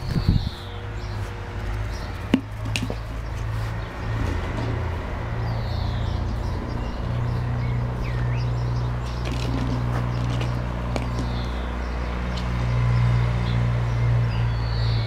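A bird calling, short high notes sweeping downward, repeated about every three seconds. Under it a steady low hum runs throughout, with a single sharp knock about two seconds in.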